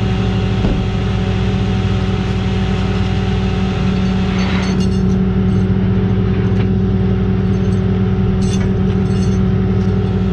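Vehicle engine running at a steady idle, a constant drone with a fixed hum, and a few light clicks and knocks in the second half.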